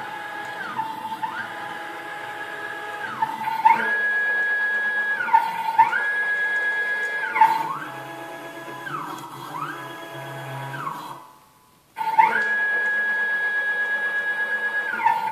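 Stepper motors of a 6040 CNC router, driven at 1/8 microstep by TB6600HQ drivers, whining as the axes jog. Each move rises in pitch as the motor speeds up, holds a steady tone at speed, then falls as it slows to a stop. Several such moves follow one another, with a brief silent pause about eleven seconds in.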